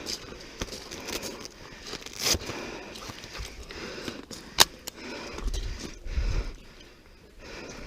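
Scraping and rustling of a player's clothing and gear on the move, with scattered clicks; one sharp click about four and a half seconds in is the loudest sound, and a low rumble follows for about a second.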